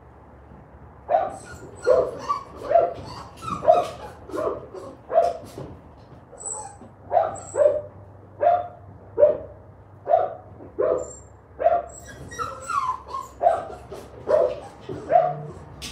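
A dog barking over and over, starting about a second in, at a steady pace of one to two barks a second, each bark dropping slightly in pitch.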